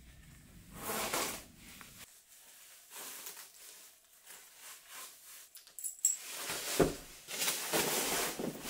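Handling sounds as a dog is strapped into a padded nylon coat: short bursts of fabric rustling, a few small metallic jingles about six seconds in, then a knock and more steady rustling near the end.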